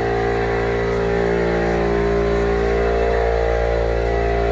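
A motor running steadily, making a constant, loud droning hum with a fixed pitch that does not rise or fall.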